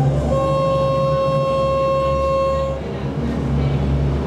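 A boat horn sounds one steady blast of about two and a half seconds, starting a moment in, over the low drone of the boat's engine.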